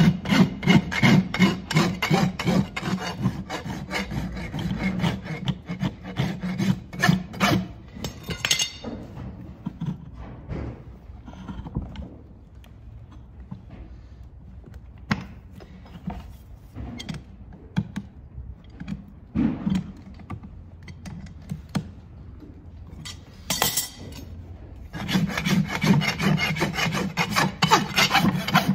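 A farrier's rasp filing the outside of a freshly shod horse's hoof in quick, repeated back-and-forth strokes, finishing the wall after the nails are clenched. The rasping stops after about seven seconds for a long quieter stretch with only a few scattered sounds, and starts again a few seconds before the end.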